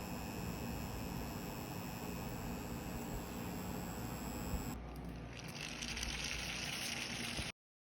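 Lego vacuum engine running steadily on its suction source: a constant mechanical running noise with a hiss of air. The tone of the hiss changes about five seconds in, and the sound cuts off abruptly near the end.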